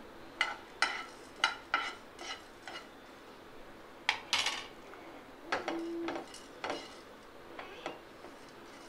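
Silicone spatula stirring and scraping whole cumin, carom and fennel seeds and black peppercorns across a dry nonstick pan: a quick run of short scrapes, then a few longer ones. The spices are being dry-roasted on low heat without oil.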